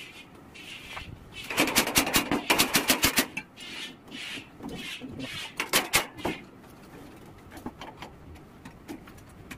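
Stick arc welding tack welds on a steel boat hull plate: two crackling bursts, a longer one from about a second and a half in and a shorter one about six seconds in.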